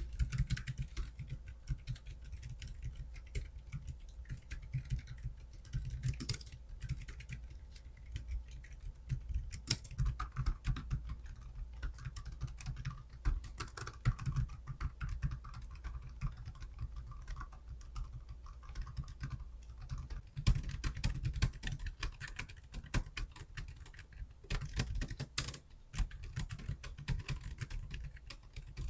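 Continuous typing on a Keychron slim low-profile scissor-switch (pentagraph) keyboard, built for low noise: a steady patter of soft keystroke clicks, with faster flurries about two-thirds of the way through.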